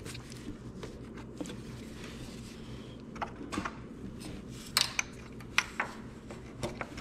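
Scattered light clicks and rustles from hands handling the wiring and parts around a lawn tractor's engine, most of them in the second half, over a steady low hum.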